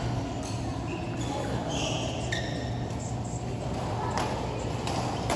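Badminton play on an indoor court: sharp racket strikes on the shuttlecock at irregular intervals and a few short shoe squeaks, over background chatter and a steady hum.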